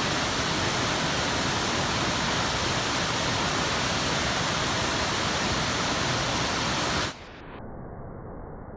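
Waterfall rushing, a steady full-range roar of falling water. About seven seconds in it suddenly drops quieter and turns muffled, losing all its high end.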